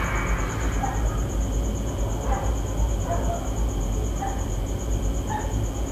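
A cricket chirping in a steady rapid pulse over a low steady rumble, with a few faint short tones about a second apart.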